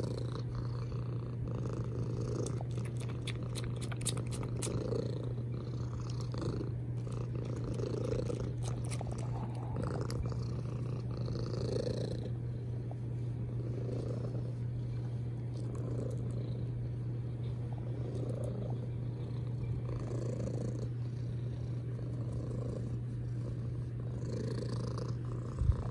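White cat purring loudly and steadily while its chin and neck are scratched, the purr swelling and fading with each breath every second or two.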